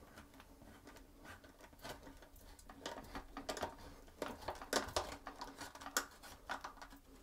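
Plastic locking wing nut being turned by hand up a toilet seat bolt, with faint, irregular clicking and scraping of plastic on plastic and on the threads.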